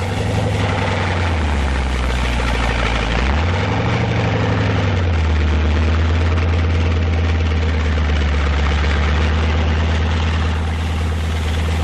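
Heavy tank engine running with a steady low drone; its pitch sags, then rises again about four seconds in and holds steady.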